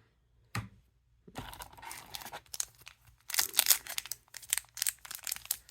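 A trading-card booster pack wrapper being torn open and crinkled: a crackling rustle that starts about a second and a half in and gets louder about three seconds in.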